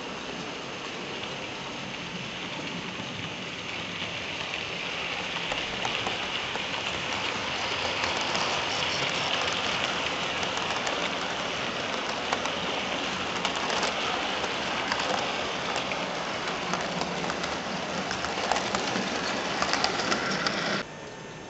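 00 gauge model train running past close by: a steady rushing clatter of metal wheels on the rails, dotted with small clicks, swelling a little towards the middle and stopping suddenly near the end.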